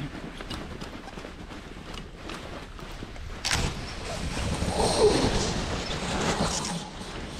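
Wind on the microphone and the rustle of a collapsing paraglider wing and its lines, with a sharp knock about three and a half seconds in.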